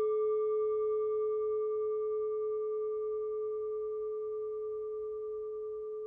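A struck bell-like chime ringing on after its strike: one steady middle tone with fainter higher overtones, slowly fading.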